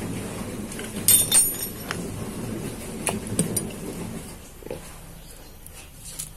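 Angle grinder being pulled apart by hand, its gearbox head and armature drawn out of the motor housing: scraping and rubbing of metal and plastic parts, with a few sharp metallic clinks about a second in and again around three seconds in.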